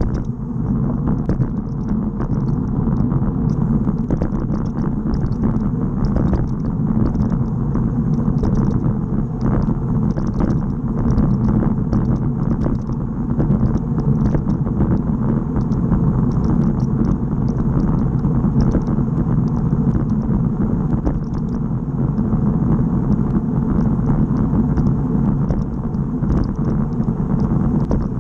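Steady wind rumble on the microphone of a bicycle-mounted camera, mixed with tyre noise on asphalt as the bike rolls along, with a scatter of faint high ticks.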